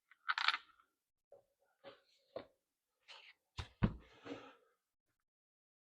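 Scattered light clicks, scuffs and knocks of chainsaw parts and small screws being handled, with two sharper knocks about three and a half seconds in.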